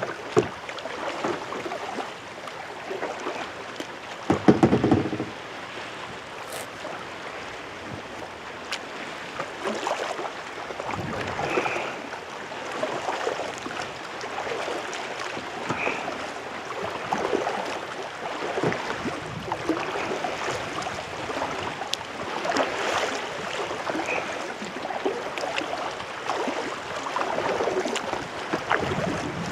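Kayak paddle strokes: blades dipping and pulling through the water, with splashing and dripping that swell every couple of seconds. There is a loud low thump about four and a half seconds in.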